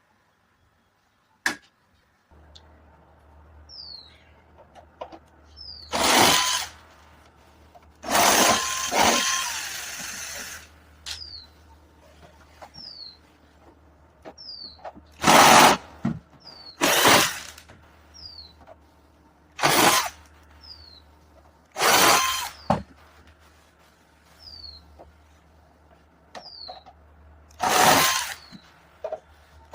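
Small power tool run in seven short bursts, one of them a longer run of about two seconds, the rest under a second. A small bird chirps repeatedly in short falling calls, over a faint low hum.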